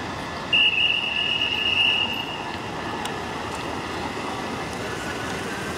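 City street traffic noise with a loud, steady high-pitched squeal that starts abruptly about half a second in and fades out after about two seconds.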